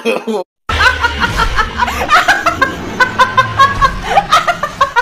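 A person laughing in quick repeated bursts, starting after a brief silence about two-thirds of a second in.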